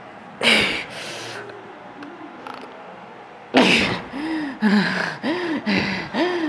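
A woman breathing hard from exertion: two sharp, loud exhales, then after a short pause another exhale followed by a string of short voiced gasps and groans, about two a second.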